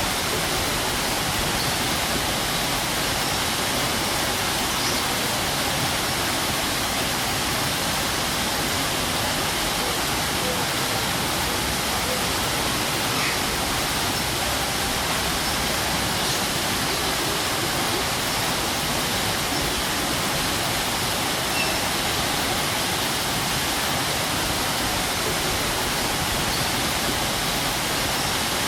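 A strong waterfall: water pouring and crashing in a dense, steady rush.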